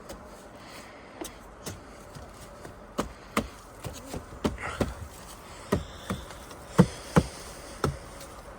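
Footsteps on wooden trail stairs: a string of irregular knocks that comes thicker and louder about three seconds in, over a faint steady buzz.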